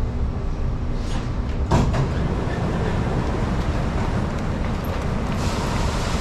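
Metro train's sliding doors and platform screen doors opening at a stopped station, with a sharp clunk about two seconds in, over the steady noise of the train.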